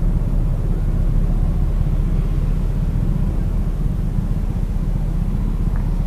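Steady low rumble of wind buffeting the microphone and road noise from a moving scooter, with no distinct impact or horn.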